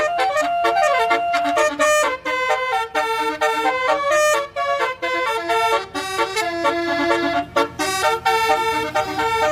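Bus 'basuri' telolet horn playing a tune: a run of held notes stepping up and down in pitch, with short breaks between phrases.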